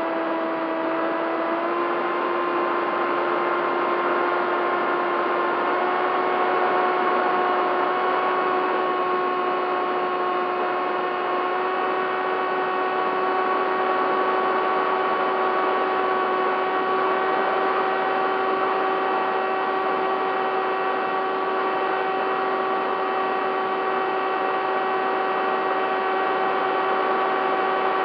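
Bixler 3 model plane's electric motor and propeller whining steadily in flight over a rush of air, the pitch stepping up slightly about two seconds and again about six seconds in.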